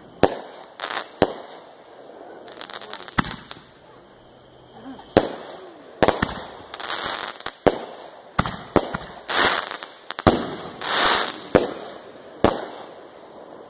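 Aerial fireworks bursting overhead: a dozen or so sharp bangs at irregular intervals, with stretches of hiss between some of them.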